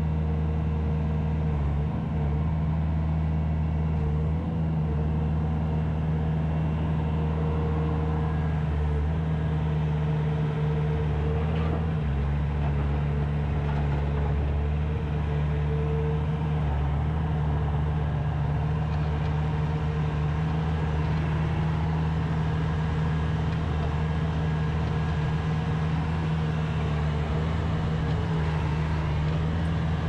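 Bobcat T590 compact track loader's 66 hp Tier 4 diesel engine running steadily as the machine lifts, lowers its bucket and drives, its note holding even throughout.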